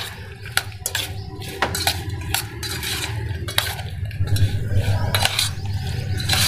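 Metal spoon clinking and scraping against a stainless steel bowl as chopped raw mango pieces coated in oil and spice mix are stirred, with irregular clinks about one or two a second.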